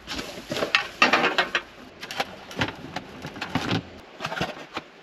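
Dishes and camping gear being handled and packed away: irregular clatter, light knocks and rustling, quieter in the last second.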